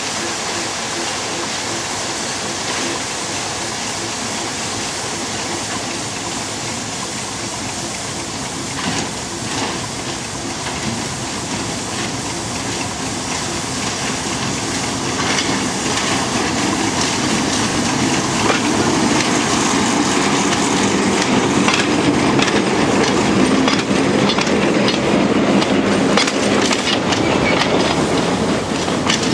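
TU2 narrow-gauge diesel locomotive's V12 engine running steadily as it hauls a train of coaches. It grows louder in the second half, when the clatter of coach wheels over the rail joints joins in.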